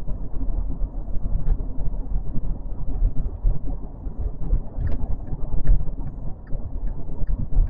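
Low, uneven rumble of a car driving, heard from inside the cabin, with light scattered ticks and rattles over it.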